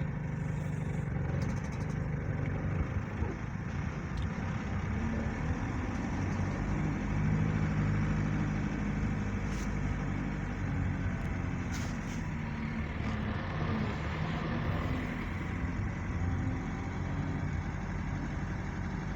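Engine and road noise of a moving vehicle, heard from inside the cabin, with the engine tone shifting slightly as it drives through city traffic.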